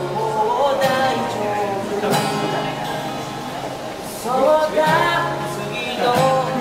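A man singing a slow song while strumming an acoustic guitar, with a strong strum about every two seconds under the sung line.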